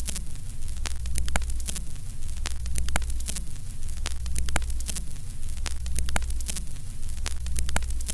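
Old-film countdown-leader sound effect: a steady low hum under crackling static, with scattered clicks and pops like worn film running through a projector.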